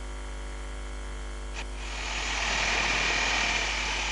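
An angle grinder cuts into metal, starting about two seconds in with a steady high ringing tone over a loud hiss. A low steady hum runs under the first part.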